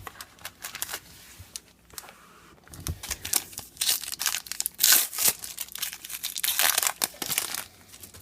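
Trading card pack wrapper crinkling and tearing as a pack is opened and the cards are handled, in irregular rustles that get louder about halfway through.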